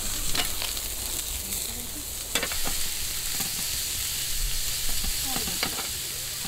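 Beef sirloin sizzling steadily on a hot ridged grill plate, with a few sharp clicks of metal tongs against the meat and plate as the slices are turned.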